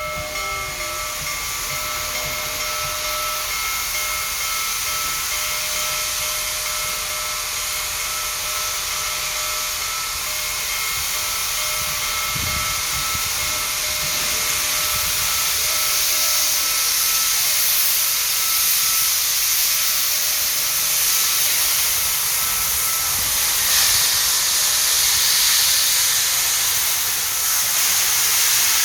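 Union Pacific Big Boy 4014 steam locomotive venting a steady, loud hiss of steam as it departs, growing slowly louder, with a few faint steady tones that fade out about halfway through.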